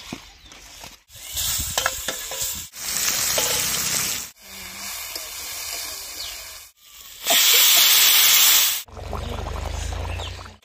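Cooking sounds in short cut-together segments: pieces of potato and brinjal sizzling and frying in oil in a wok as a spatula stirs them, with the loudest burst of sizzling about seven seconds in. Near the end, the curry is bubbling in the pot.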